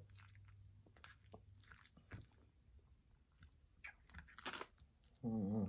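Faint chewing and mouth noises of a person eating chicken lo mein, with small wet clicks and crackles. Near the end, a short loud vocal sound from the eater, like a hum.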